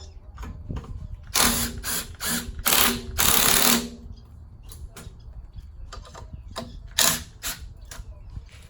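Hand ratchet clicking in several quick runs, loudest between about one and a half and four seconds in and again around seven seconds, while working bolts on a Cummins engine.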